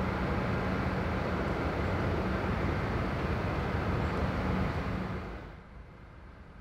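Steady outdoor vehicle rumble with a low hum. About five and a half seconds in it fades down to a much quieter background.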